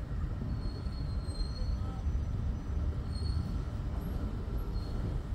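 An NR-class diesel-electric locomotive hauling The Ghan slowly out of the station: a steady low rumble of the engine and rolling wheels, with a few faint, brief high squeaks over it.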